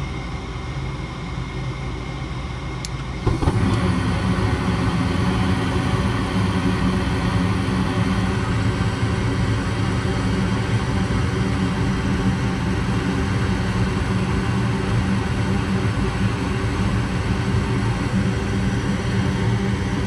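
Goodman gas furnace running in the open cabinet, back in operation after the pressure-switch fault cleared. A little under three seconds in there is a faint click. Half a second later the sound steps up suddenly into a louder steady hum and rumble as the furnace fires up.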